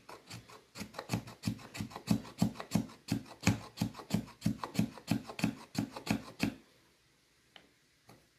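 Square spine of a Mora Garberg knife scraping fine shavings off a stick of fatwood, in quick even strokes of about three a second that stop about two-thirds of the way through.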